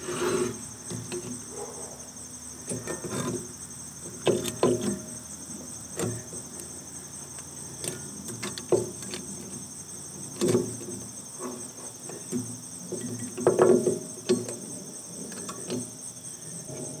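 Irregular metallic clicks, taps and short scrapes of steel pliers gripping and bending a cotter pin through a rusty castle nut. Under them runs a steady high-pitched insect chorus.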